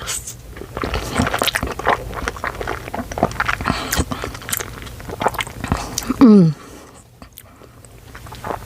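A person chewing a big mouthful of cheesy ramen noodles, close to the microphone, with many small wet clicks and smacks. About six seconds in comes a brief, loud vocal sound falling in pitch, followed by softer chewing.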